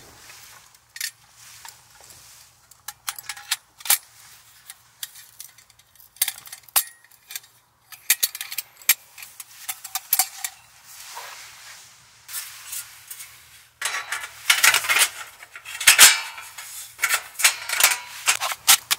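Irregular clinks, taps and knocks of small hard objects being handled, with denser, louder scraping or rustling in the last five seconds.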